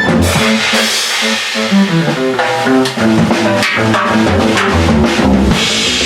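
A large drum kit played in a jam, with cymbal wash and repeated drum and bass-drum hits over music carrying guitar and bass lines that change note every fraction of a second.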